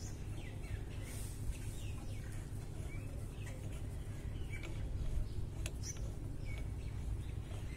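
Small birds chirping in the background over a steady low hum, with a couple of sharp metallic clicks about five and a half seconds in as a puller is threaded into a motorcycle's magneto flywheel.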